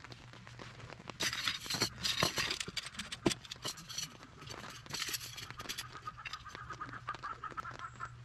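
Rustling, with sharp light clicks and rattles of a folding metal rack being unfolded and set up by hand; one louder clack about three seconds in, and a faint thin squeaky tone near the end.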